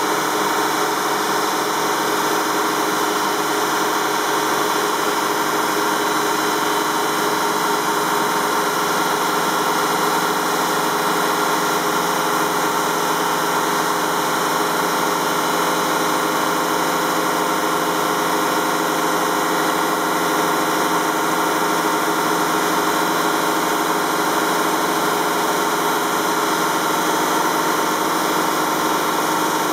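Grimonprez semi-automatic bridge saw cutting a stone slab with its water-cooled diamond blade: a steady grinding hiss with a constant motor whine, over the splash of cooling water.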